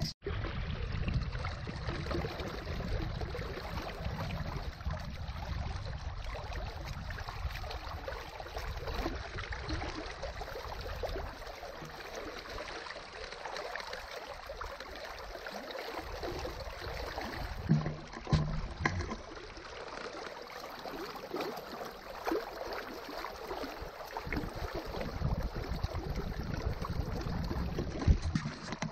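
Water rushing and lapping against a small boat as it moves steadily across a lake, with a low rumble underneath.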